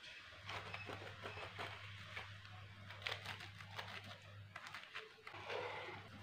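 Serrated knife sawing through a crisp toasted sandwich on a wooden cutting board: a run of crunching, scraping strokes. A steady low hum sets in about half a second in.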